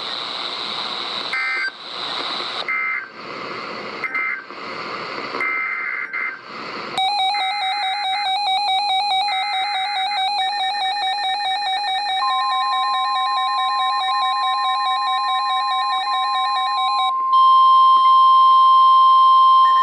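Weather radios going off for an Emergency Alert System warning. The first seven seconds or so are short, harsh bursts of digital alert-header data. Then a warbling electronic alarm starts, a steady high NOAA Weather Radio warning tone joins it, and near the end the warble stops and the steady tone continues alone and louder, leading into the next warning message.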